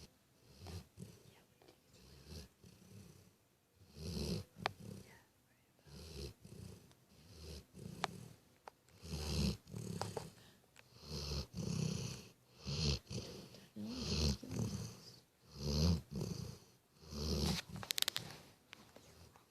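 A dog snoring in a steady rhythm, about one rumbling snore a second. The snores are faint at first and grow louder after about four seconds, with a few sharp clicks between them.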